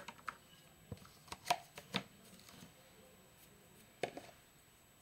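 Faint handling noises close to the microphone: a scatter of short clicks and soft knocks, bunched about a second in and again about four seconds in.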